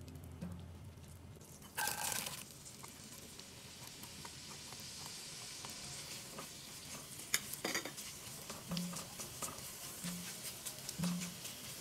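Diced onions going into hot melted butter in an enamelled cast-iron pot: a burst of sizzle about two seconds in, then steady sizzling as a silicone spatula stirs and scrapes them, with a few sharp taps against the pot.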